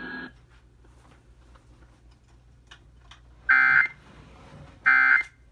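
Emergency Alert System SAME data bursts over a radio receiver: two short, identical screechy bursts about a second and a half apart, following a stretch of faint static. Short bursts like these make up the end-of-message code that closes an alert broadcast.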